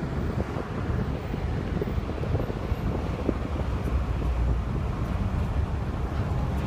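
Steady low rumble of a vehicle driving along, with wind buffeting the microphone and a few faint knocks.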